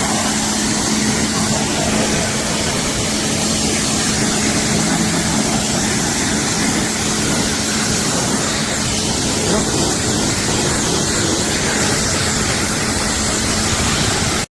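Pressure washer running and spraying through a 25-degree nozzle: a steady loud hiss of the water jet over a steady motor hum, cutting off suddenly near the end.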